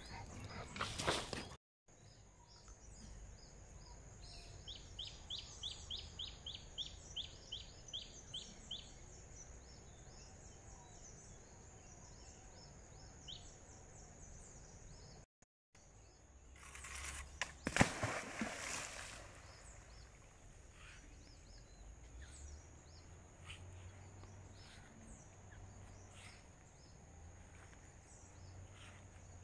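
Quiet outdoor ambience with birds calling: one bird repeats a short high call about twice a second for several seconds, over a steady high-pitched whine. About two-thirds of the way through comes a brief louder rushing noise.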